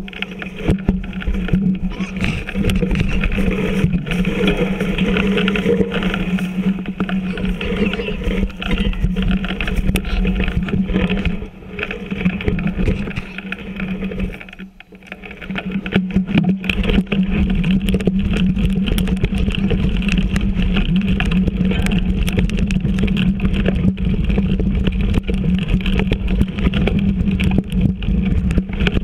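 Mountain bike riding noise picked up by a camera mounted on the bike: a steady rumble from the tyres and wind, with many small knocks and rattles as the bike rolls over the rocky, leaf-covered trail. It drops off briefly twice near the middle.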